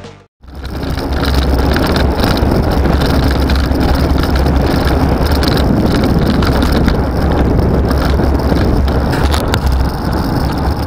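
Steady wind buffeting on a handlebar-mounted bicycle camera's microphone while riding, mixed with road noise, with one sharp click near the end.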